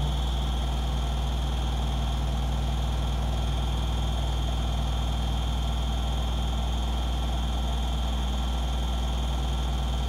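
Hoover DXOAG48AHC-84 washing machine spinning at high speed: a steady deep hum with a thin high whine over it, unchanging throughout. The drum spins so hard that the machine vibrates strongly.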